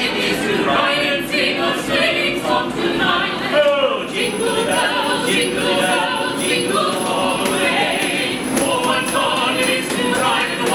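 Mixed quartet of carolers, two women and two men, singing a Christmas carol, with jingle bells shaken along from about four seconds in.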